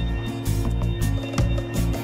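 Background music with a bass line.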